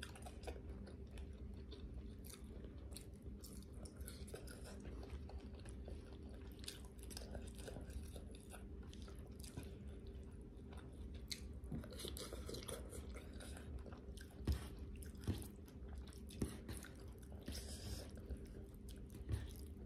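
Faint close-up chewing of Thai spicy noodle salad eaten by hand: soft mouth sounds and small clicks, with a few sharper ticks in the last few seconds.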